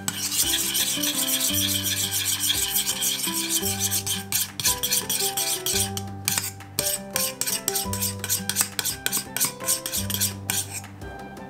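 A metal spoon scraping around a stainless steel bowl as it stirs a sauce. For the first four seconds or so the scraping is continuous, then it breaks into quick separate strokes, several a second. Background music with a bass line plays underneath.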